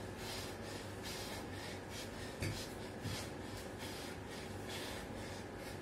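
A man breathing hard in quick, rhythmic puffs, about two to three breaths a second, while pumping out push-ups in a burpee set. There are two soft thumps about two and a half and three seconds in, over a low steady hum.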